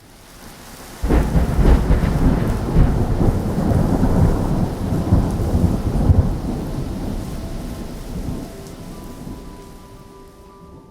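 Deep rumbling roar sound effect that starts suddenly about a second in and slowly dies away over the last few seconds. Faint steady tones come in near the end.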